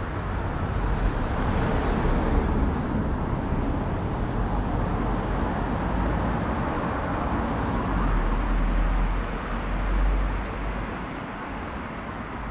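Street traffic: vehicles passing on the road, a steady rumble that swells about two seconds in and again near ten seconds in.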